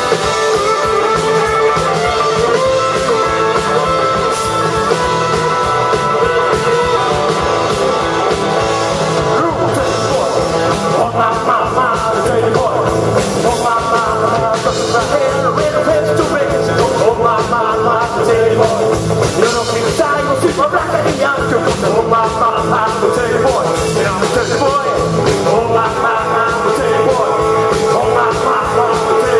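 Live rock and roll band playing: electric guitars, bass and drums with two men singing into microphones.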